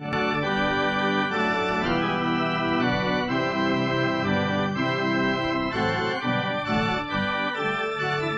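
Electronic organ playing a hymn tune in held chords that change about once a second, starting abruptly.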